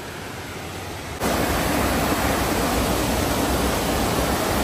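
Rushing water of a rocky mountain creek and cascade, a steady even hiss with no distinct splashes. It is fainter at first and jumps abruptly louder about a second in, then holds steady.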